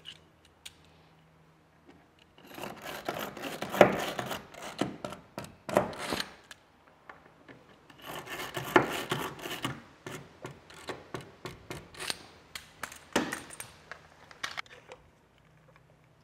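A Stanley Yankee 130A spiral ratchet (push) screwdriver being pumped to drive screws into a wooden hull plank. It makes rapid ratcheting strokes with sharp clicks, in three runs separated by short pauses.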